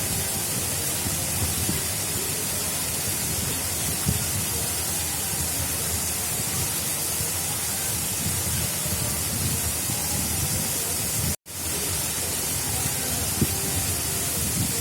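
Steady rush of water flowing along an artificial river channel, an even hiss with low churning underneath. It cuts out completely for a split second about eleven seconds in, then resumes.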